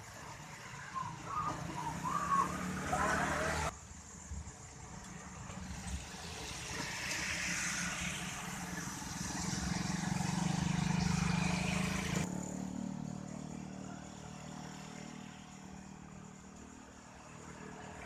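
Road traffic passing: a vehicle's sound swells up and fades away. The recording cuts off abruptly twice, at about four seconds and about twelve seconds.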